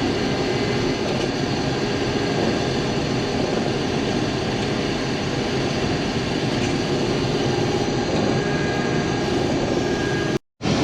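Combine harvester running steadily in the field, its engine and threshing machinery making a constant drone. The sound cuts off abruptly for a moment near the end.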